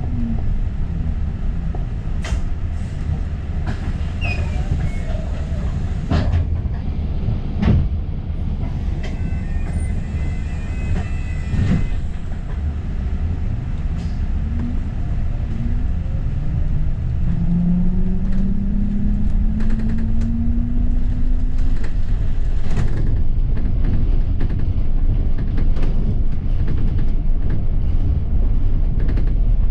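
London bus on the move: steady engine and road rumble with scattered knocks and rattles from the bodywork. The engine note rises twice, about halfway through and again a few seconds later, as the bus gathers speed.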